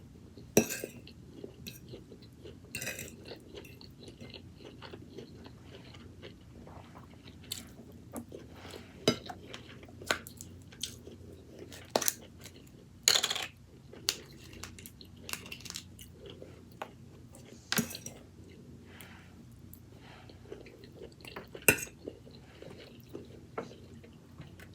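Close-miked eating: chewing and crunching on roasted pork with crunchy skin, with a longer crunch about halfway through. Sharp clicks of cutlery on a plate or bowl come every few seconds.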